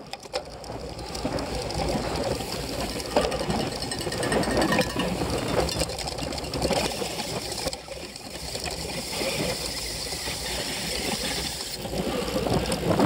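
Cyclocross bike rattling and clattering as it rides over bumpy grass, picked up by a camera mounted on the bike, with a steady stream of small knocks that eases briefly about eight seconds in.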